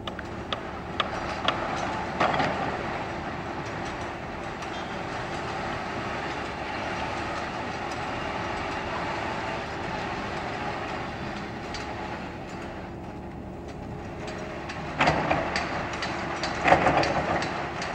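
Diesel engines of a Volvo EW160C wheeled excavator and a tipper truck running steadily with a steady hum, a few sharp clanks in the first couple of seconds. Louder rattling crashes come several times near the end.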